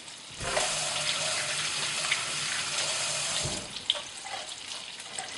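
A kitchen tap runs into the sink for about three seconds, turned on and off with a knock at each end, over the steady sizzle of chicken frying in oil.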